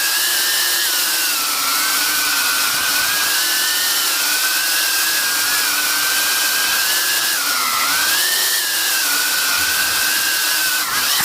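Eachine Cvatar FPV quadcopter's motors and propellers whining in flight. The pitch wavers up and down as the throttle changes and dips briefly about eight seconds in before climbing back.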